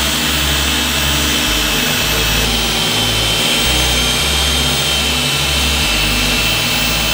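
Handheld electric polisher running steadily with a high whine as its pad buffs a boat's gelcoat hull in preparation for ceramic coating.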